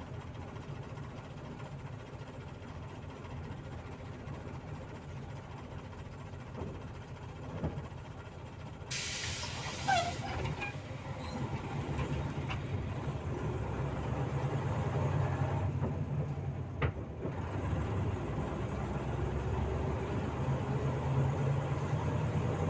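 Volzhanin-5270 city bus heard from inside, its diesel engine idling with a steady hum. About nine seconds in there is a loud burst of hissing compressed air from the bus's pneumatic system, then the engine grows louder and its pitch slowly rises as the bus pulls away.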